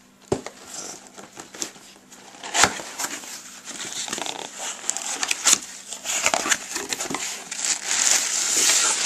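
Cardboard box flaps pulled open by hand, scraping and rustling with a sharp knock about two and a half seconds in, then a plastic bag inside crinkling, getting louder near the end.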